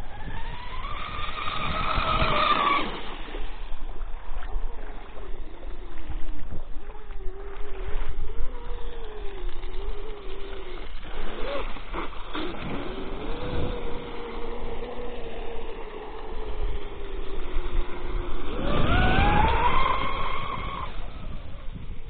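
Brushless electric motor of a 6S-powered RC catamaran speedboat, an SSS 3674 2075 kV, running with a high-pitched whine. The pitch rises steeply twice, at the start and again near the end, as the boat accelerates. In between, a fainter whine wavers in pitch as the boat runs further out, over a low rumble.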